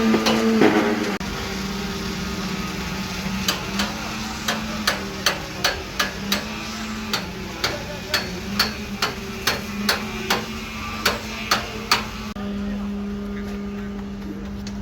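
Hammer blows, about twenty sharp strikes at roughly two to three a second, starting a few seconds in and stopping near the end, over the steady hum of a running engine.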